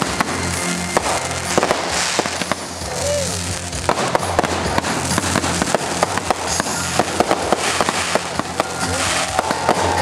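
Fireworks display: aerial shells bursting in a rapid run of bangs and crackles, coming thicker from about four seconds in, with music playing underneath.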